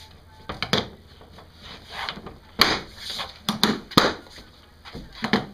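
Tan Pelican 1750 hard plastic rifle case being shut: a series of sharp plastic clicks and knocks as the lid is pressed down and its latches are snapped closed, several in quick succession around the middle.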